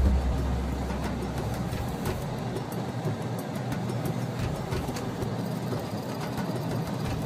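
A car driving with steady road and engine noise. A heavy low rumble fades out about two seconds in.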